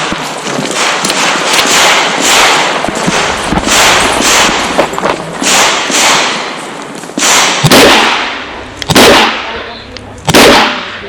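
Handgun shots fired in a string during a practical-shooting course of fire, each a sharp crack with a ringing tail, coming thick in the first seven seconds and then as a few louder shots over a second apart.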